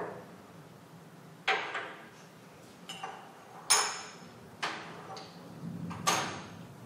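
Laboratory glassware handled on a bench: about six sharp clinks and knocks of glass flasks and test tubes set down and moved about, the loudest a little past the middle with a brief glassy ring.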